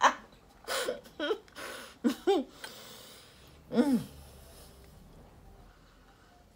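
A woman laughing: a few short, wheezy, pitched laughs in the first two seconds and one falling vocal sound about four seconds in, with breathing between them. After that it fades to faint room sound.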